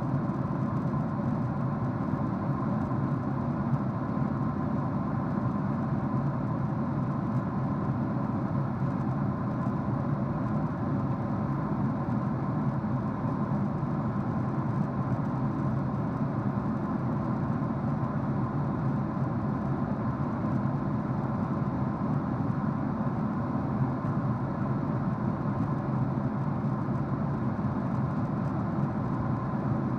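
Steady drone of engine and airflow noise inside a jet airliner's cabin at cruise, with a faint even hum and no change throughout.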